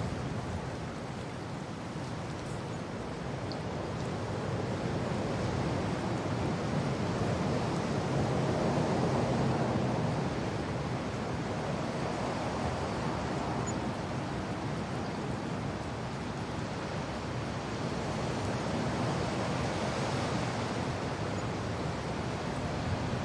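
Wind blowing with rain falling: a steady rushing noise that slowly swells and eases in gusts.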